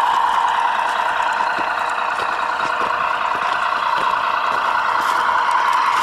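Radio-controlled model Peterbilt truck driving under load: a steady mid-pitched engine-like drone with scattered small ticks.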